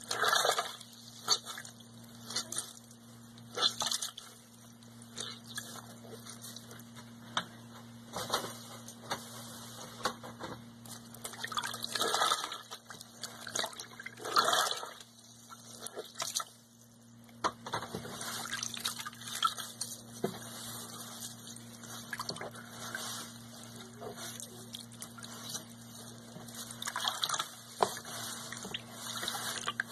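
Foam sponges soaked in pine-cleaner solution being squeezed and kneaded under water: irregular wet squelches, gurgles and splashes, with water dripping back into the tub.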